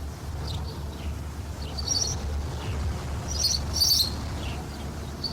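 Birds chirping: scattered short high chirps and quick downward-sliding calls, busiest around two and four seconds in. Under them runs the steady low hum and hiss of an old cassette tape transfer.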